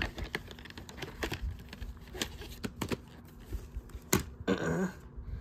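Scattered clicks and taps of plastic VHS clamshell cases and tapes being handled.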